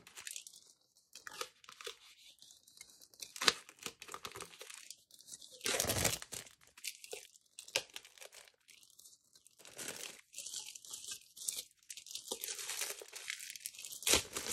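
Plastic shrink wrap being torn and peeled off a spiral-bound planner, crinkling in short irregular bursts with pauses between them.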